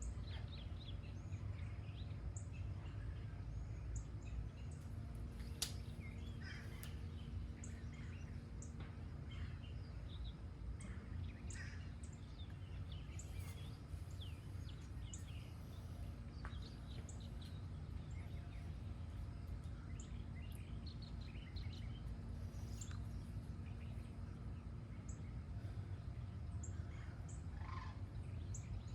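Several birds chirping and singing in short scattered calls, over a steady low background rumble.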